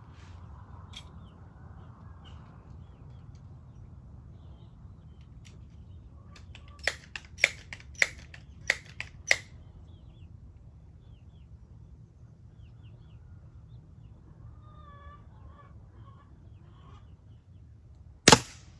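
A Crosman 1377 multi-pump .177 pellet pistol fires once near the end: a single sharp crack, the loudest sound here. About a third of the way in comes a quick run of about six sharp clicks, and faint bird chirps are heard in the latter half.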